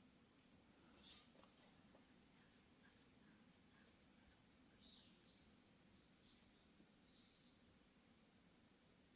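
Faint steady high-pitched insect trill, like crickets, running without a break, with a few faint short chirps and clicks in the middle.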